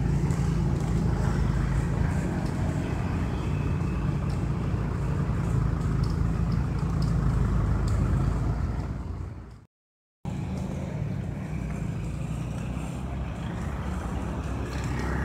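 Motorcycle engines running with road noise and a heavy low rumble. The sound drops out completely for about half a second roughly two-thirds of the way through, then carries on a little quieter.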